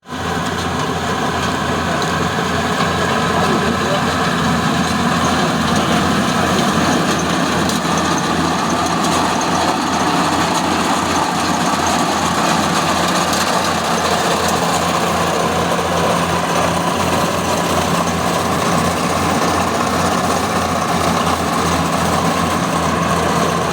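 Rice combine harvester's engine running steadily: a continuous low, rapidly pulsing drone with mechanical noise spread above it.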